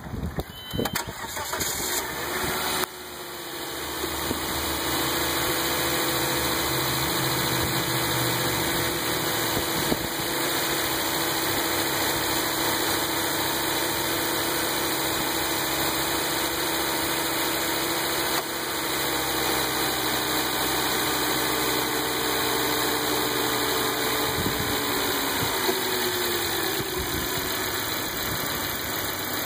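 Volvo S60 running with a steady buzzing hum over the engine noise. Near the end the buzz drops in pitch.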